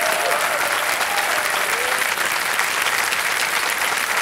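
Studio audience clapping steadily, with a few voices calling out in the first couple of seconds.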